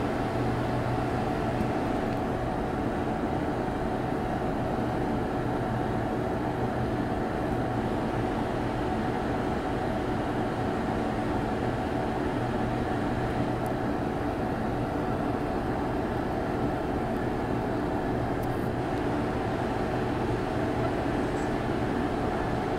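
Steady hum of an empty underground metro station platform, with a few constant tones over an even noise floor that holds level throughout; no train is yet in the station.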